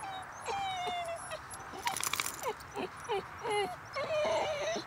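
Basenji whining in a string of high, wavering whines and short yelps, eager at a hare's burrow. A brief scratchy rustle comes about two seconds in.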